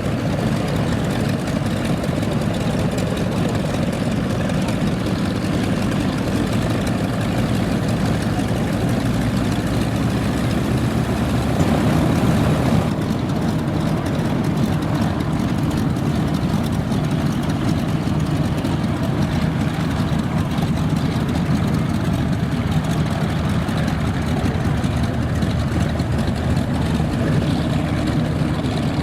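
Piston engine of a vintage propeller aircraft running steadily. About thirteen seconds in, the sound changes abruptly as the high hiss drops away.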